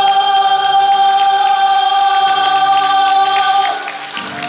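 A chorus of voices holding the song's last sung note steadily, cutting off about three and a half seconds in; applause starts near the end.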